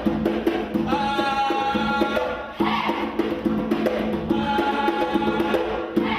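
Percussion ensemble playing a fast, even rhythm on drums and wood-block-like strikes, with a sung voice holding a long note about a second in and again near the end.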